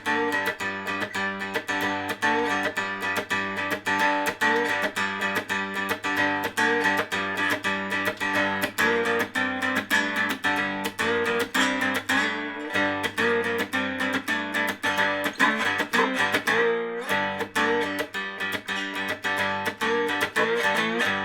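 Cigar box guitar played with a fast, even rhythm of picked and strummed strokes over droning low strings, giving a deep sound. The last notes are left to ring out and fade at the end.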